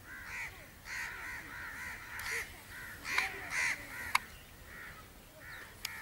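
Birds calling with harsh, rapid, repeated cries that run on without a break, with a couple of sharp clicks about three and four seconds in.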